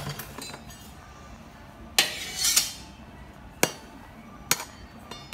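Kitchen utensils knocking and clinking: a few sharp single strikes spaced a second or more apart, one about two seconds in followed by a brief scraping rustle.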